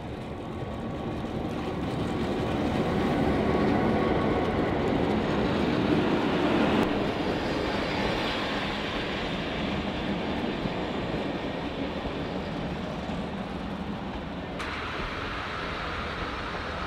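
A diesel locomotive and its passenger carriages roll past close by with a steady rumble of engine and wheels on the rails. The sound builds over the first few seconds as the locomotive goes by, then eases a little as the carriages keep passing.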